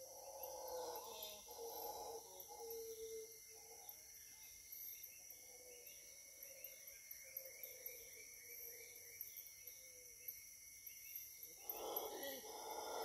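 Distant mantled howler monkeys howling, in rough pulsing bouts that fade in the middle and swell again near the end, over a steady high-pitched chorus of cicadas and other insects.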